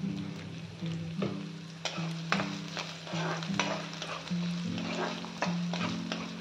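Chopped onions sizzling in hot oil in a metal kadai, stirred with a steel ladle that clicks and scrapes against the pan a dozen or so times. Background music with a low plucked note line runs underneath.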